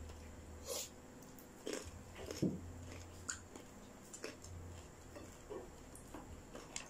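Chewing and crunching of crispy deep-fried pork knuckle (crispy pata) skin. Short crunches come about once a second over a faint low hum.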